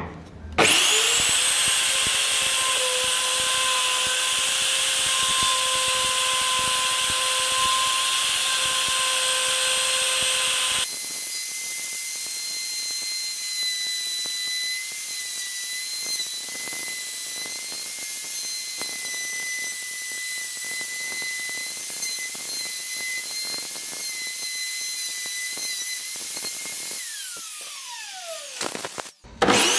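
Electric plunge router spinning up and running with a steady high whine as it cuts a recess into an oak and epoxy-resin clock face; about a third of the way in the whine steps abruptly higher. Near the end the motor is switched off and its whine falls away as it winds down, then it starts up again right at the end.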